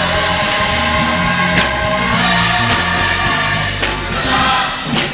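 Gospel choir singing a praise song with a live band: held voices over a bass line and drums. The bass drops out near the end.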